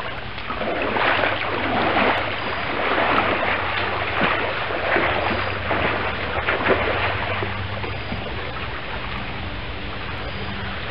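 Splashing of a person wading into a swimming pool and swimming away across it, stroke after stroke, the splashes thinning out near the end as the swimmer reaches the far side. A steady low hum runs underneath.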